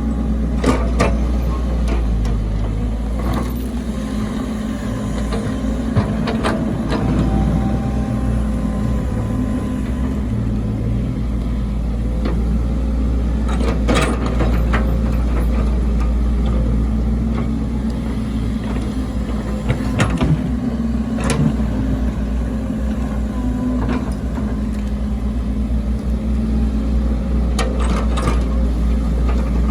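Excavator's diesel engine running steadily, with short sharp knocks every few seconds.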